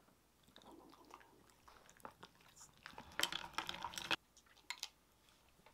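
Small dog crunching and chewing a hard treat taken from a hand, with faint clicks at first and a run of crunches about three seconds in.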